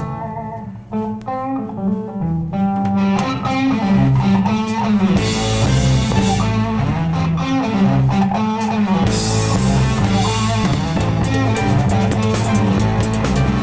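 Rock band playing an instrumental passage: a guitar riff over bass, with the drum kit coming in a few seconds in and the full band playing on from there.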